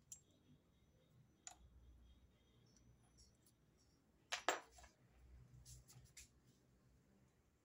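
Near silence from a metal lathe centre drilling a part: a faint low hum with scattered small clicks, the loudest a short cluster about four and a half seconds in.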